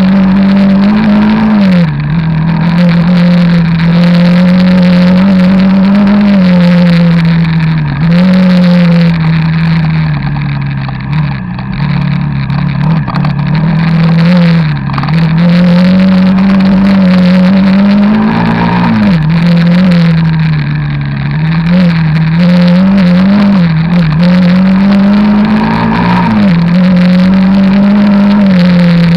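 The engine of a 300 cc off-road motorcycle running under way along a muddy dirt track. Its pitch rises and falls as the throttle opens and closes, with short sharp revs about two-thirds of the way through and again near the end.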